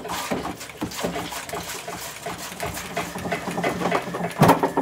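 A keg of cold beer being shaken by hand to force-carbonate it at 30 psi: irregular knocking and sloshing, with a louder knock near the end. Shaking dissolves the headspace CO2 into the beer, so more gas flows in through the line.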